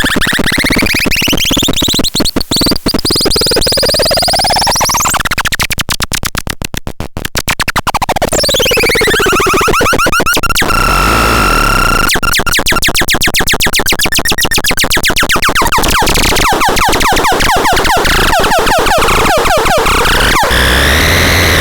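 Harsh, loud electronic synthesizer noise with pitches sweeping up and down. It breaks into rapid chopped stuttering pulses, briefly holds a steady tone about halfway through, and sweeps up again near the end.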